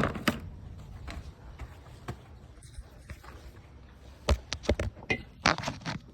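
Horse's hooves knocking on a hard barn floor as she shifts and steps: one knock near the start, then a quick run of several irregular knocks from about four seconds in.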